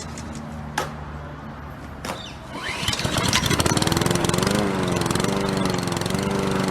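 Lawn mower engine being pull-started, catching about three seconds in and then running steadily.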